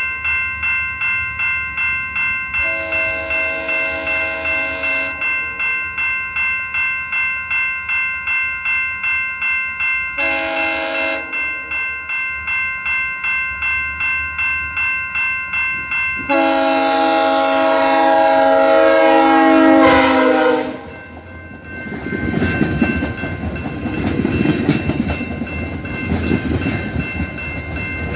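Railway crossing bell ringing about twice a second while an approaching train sounds its multi-note horn for the grade crossing: a long blast, a short one, then a long, louder blast that drops in pitch as the train passes. The train then runs by with wheels clattering on the rails.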